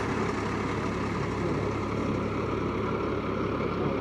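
Heavy vehicle engine running steadily, with a low, even hum.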